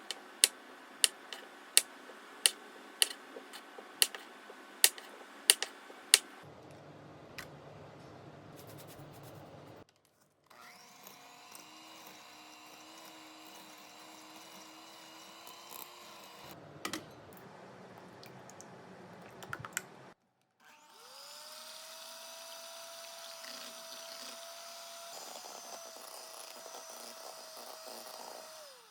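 A run of sharp clicks about every half second, then a small electric kitchen motor running steadily in two stretches. The second stretch spins up at the start and holds an even pitch.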